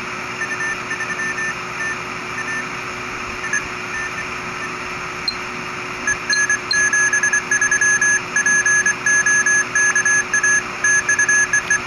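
Morse code (CW) signal on the 20-metre amateur band, received in upper sideband on a software-defined radio: a keyed beeping tone of dots and dashes over steady band hiss. It is faint and broken at first and comes in much stronger and continuous from about halfway.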